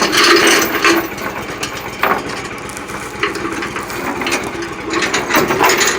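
Backhoe engine running steadily, with a few sharp knocks from the machine.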